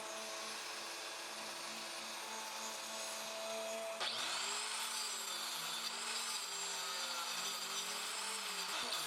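Electric power tool running on wood. It runs steadily at first, then about four seconds in it grows louder and its pitch dips and recovers again and again as it bears on the wood.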